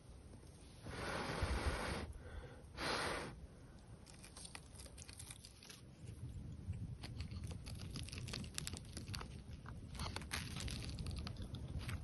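Rustling and crinkling of camping gear being handled: two loud swishes, about one and three seconds in, then a long run of small crinkles and clicks.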